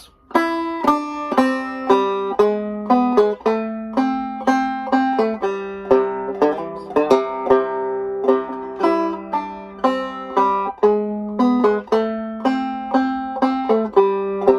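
Five-string banjo played clawhammer style: the first part of the tune played through as a steady run of plucked melody notes and strums, with slides and a pull-off on the bass string.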